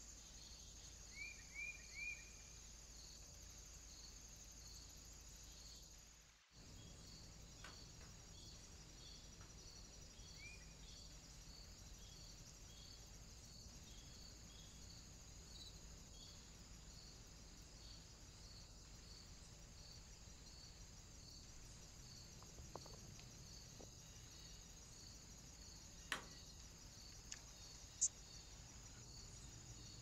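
Faint, steady chirring of summer insects, pulsing about twice a second, over low hiss. A few short rising chirps come near the start and a few sharp taps near the end.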